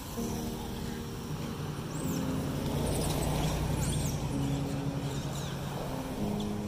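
Background music of held notes that change in steps, over a low rumble that swells in the middle. Several short high chirping calls come through about two to five seconds in.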